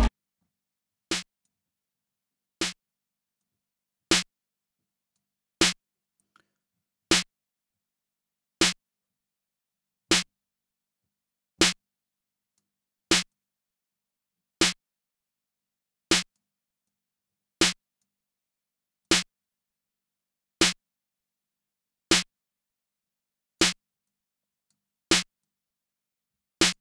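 A lone snare drum hit repeating at an even pace, about one every one and a half seconds, played back through an 1176-style FET compressor plugin. The first two hits are quieter than the rest.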